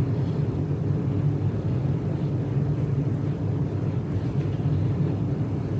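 A steady low hum with no other events in it.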